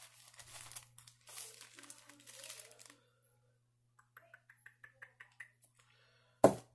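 Rustling and crinkling from hands handling sharpening supplies for about three seconds, then a short run of light ticks, about six a second, and a sharp knock near the end as something is set down hard.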